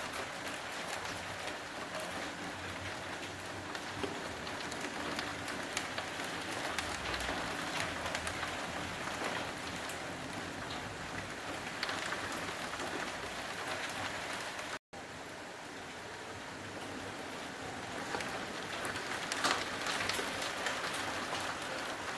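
Steady downpour of rain falling on buildings, trees and a street, an even hiss with scattered sharper drop sounds. The sound cuts out for an instant about fifteen seconds in.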